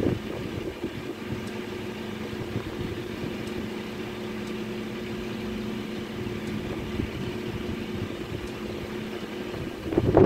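A steady low mechanical hum holds evenly, with faint ticks about once a second. A loud, gusty rush of noise sets in right at the end.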